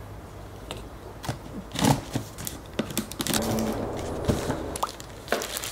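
Product packaging being opened by hand: a few knocks and taps on the box, then a stretch of rustling and sliding as the contents are handled.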